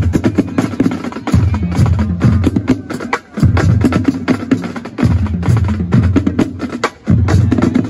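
Marching drum line playing: rapid snare drum strokes over a lower drum pattern, breaking off briefly about three seconds in and again about seven seconds in.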